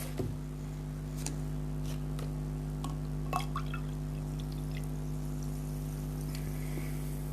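Wet eating sounds of curry and rice: soft smacks and a few small clicks, the loudest a little over three seconds in, over a steady low hum.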